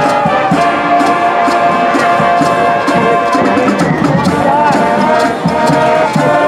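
High school marching band playing: brass sustaining loud held chords over drums keeping a steady beat.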